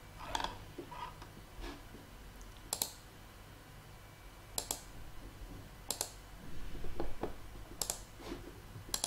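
Faint clicking of a computer mouse and keyboard: five sharp clicks a second or two apart, with softer taps between.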